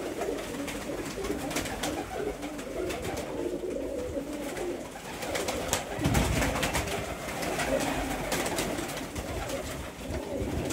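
A loft full of domestic pigeons cooing continuously, many birds overlapping, with a brief flurry of wing flapping about six seconds in.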